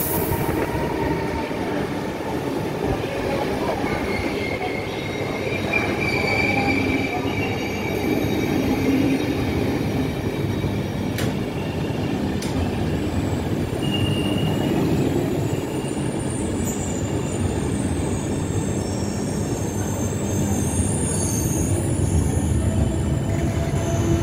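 Passenger train of PKP Intercity coaches behind ÖBB Taurus locomotive 1216 902 rolling slowly into the platform. Its wheels and track give a steady rumble, with thin high squeals from wheels and brakes coming and going.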